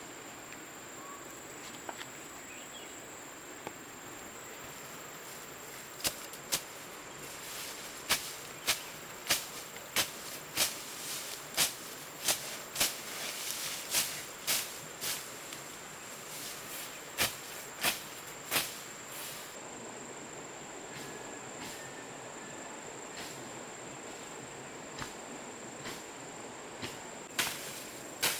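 Steady high-pitched insect drone, with a run of sharp knocks, one or two a second, through the middle and a few more near the end.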